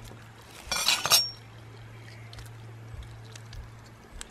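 A steel knife clinking against a glass tabletop about a second in, with a brief high ring, over a steady low hum; a few faint ticks follow.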